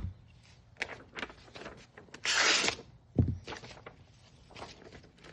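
Freshly sharpened kitchen knife slicing through a sheet of paper: one clean swish about two seconds in, with a few light clicks of handling and a short low thump a little after.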